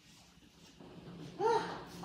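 A dog gives one short yelp about a second and a half in, rising and falling in pitch, over a faint steady hum.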